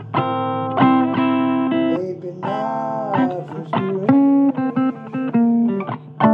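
Blues guitar music: a run of plucked single notes and short phrases, some notes bent in pitch.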